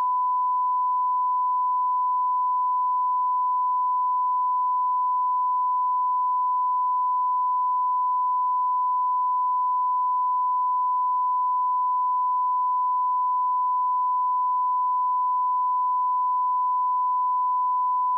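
Steady 1 kHz sine-wave test tone, the reference tone of a bars-and-tone test signal, holding one pitch at a constant level without a break.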